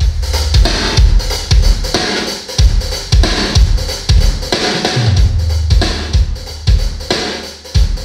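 Loud music with a pounding kick drum, snare and deep held bass notes, played through a PA sound system during a sound test: subwoofers crossed over at 70 Hz under Cerwin-Vega full-range cabinets.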